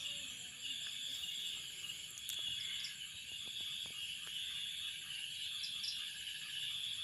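Steady, high-pitched chorus of insects, unbroken throughout, with a few faint ticks in the middle.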